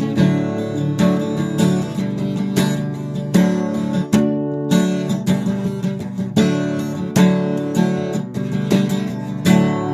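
Acoustic guitar strummed in a steady rhythm of chords, an instrumental passage with no singing.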